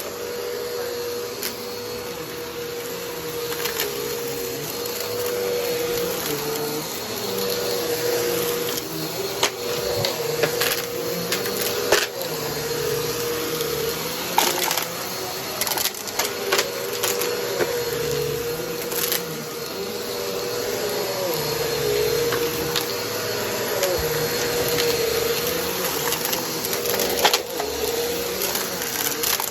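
A vacuum cleaner runs with a steady, slightly wavering whine while sucking up crunchy debris, which makes frequent sharp crackles and clicks.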